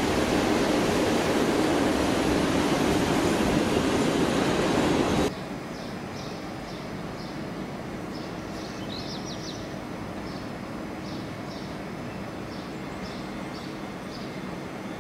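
PKP Intercity passenger coaches rolling past on the rails, a loud steady rumble that cuts off suddenly about five seconds in. After that there is a much quieter scene with a faint steady hum and short high chirps.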